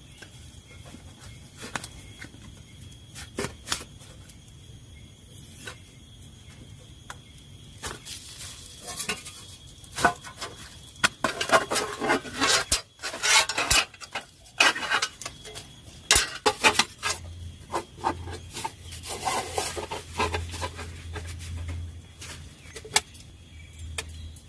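Camp cookware and utensils being handled: scattered knocks and clinks, with bouts of scraping in the middle and again later on.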